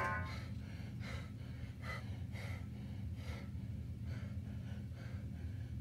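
A man's quick, heavy breaths, about two a second, over a low steady hum.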